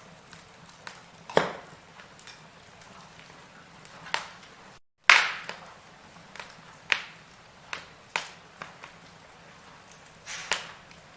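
Wood fire crackling in a fireplace: irregular sharp pops and cracks over a soft steady hiss. The sound cuts out for a moment about five seconds in, and the loudest crack follows right after.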